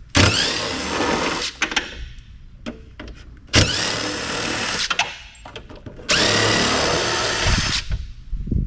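Power drill-driver running in three bursts, each spinning up quickly, backing screws out of a microfiche reader's housing.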